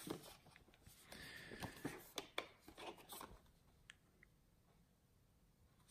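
Faint rustling and light clicks of paper cards and cardboard packaging being handled and lifted out of a box, for about three seconds, then near silence.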